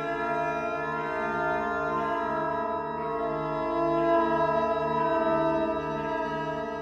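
Background music of held organ-like keyboard chords over a low note that pulses about twice a second.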